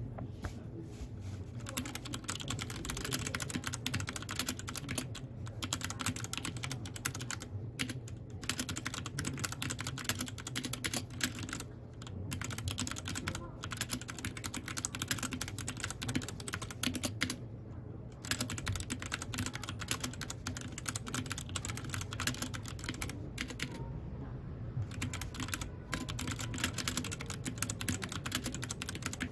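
Mechanical keyboard typing: a rapid, continuous run of keystroke clicks, broken by a few short pauses of under a second.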